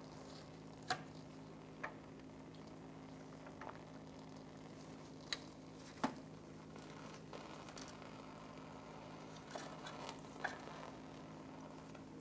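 A steel transmission cooler line being worked free of its fitting: a few scattered light clicks and taps, the loudest about six seconds in, over a faint steady hum.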